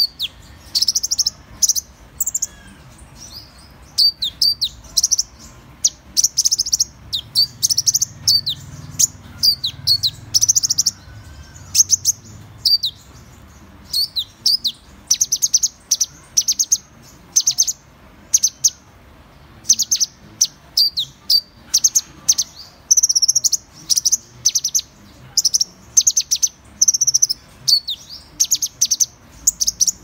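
Van Hasselt's sunbird (Leptocoma brasiliana) singing: quick bursts of high, thin chirping twitters, each a second or less long, following one another with short pauses.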